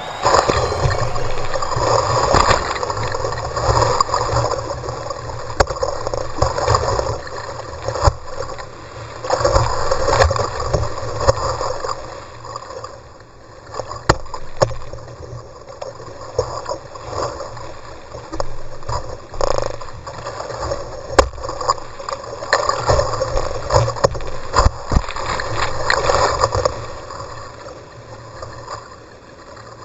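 Whitewater rapids rushing and splashing around a kayak, heard close up from a camera on the bow deck. The water noise swells and eases in waves, with sharp knocks of water and paddle strokes now and then.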